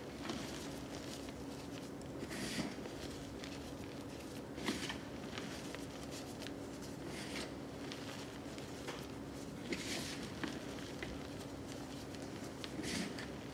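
Hands crushing and crumbling soft dyed gym chalk and reformed chalk, with a soft powdery crunch every two to three seconds and fine crackling in between, over a faint steady hum.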